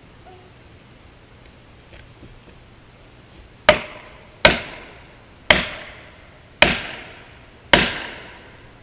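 Five sharp hammer blows about a second apart, each ringing briefly, driving a felling wedge into the cut of an alder trunk to tip it. The first few seconds are quiet, with the blows starting about halfway in.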